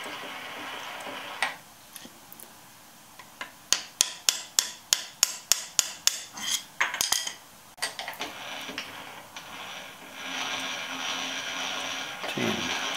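A hammer tapping a steel rod against a lathe-chuck jaw clamped in a milling vise, about a dozen sharp metallic taps at roughly three a second, to nudge the jaw into line under a dial indicator. A steady machine hum runs at the start, stops with a click, and comes back near the end.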